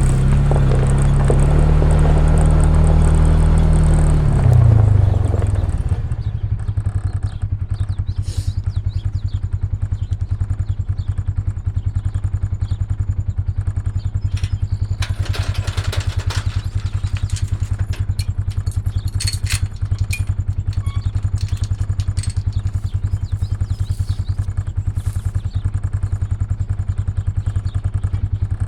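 A farm vehicle's engine running: it runs higher for about five seconds, rises briefly, then drops back to a steady, even idle. A few short clattering knocks come in midway.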